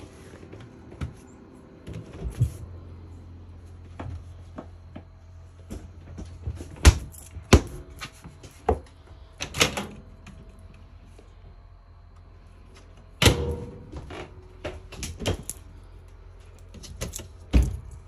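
RV kitchen doors being opened and shut by hand (refrigerator door, microwave door, overhead cabinet doors): a scattered run of latch clicks, knocks and thuds, several of them sharp and loud. A low steady hum sits underneath.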